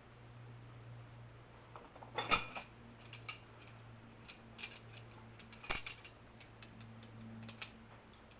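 Small metal hand tools clinking and clicking as they are handled and sorted, with two louder clanks about two and six seconds in, over a steady low hum.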